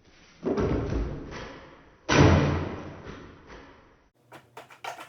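Two heavy, muffled thumps about a second and a half apart, each dying away over roughly a second, followed by a few faint clicks.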